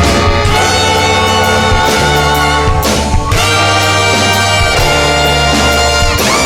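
Live funk band: a horn section plays the melody over steady bass notes and drums.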